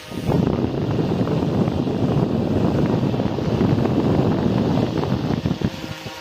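Air from a homemade table fan driven by a small 12-volt DC motor buffeting the microphone: a steady, fluttering wind rush that starts just after the beginning and eases off near the end.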